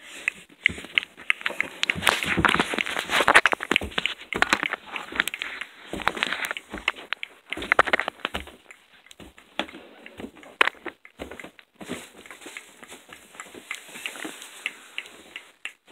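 Close handling noise from a plush toy being grabbed and turned against the microphone: irregular rustling, rubbing and small knocks, louder in the first half.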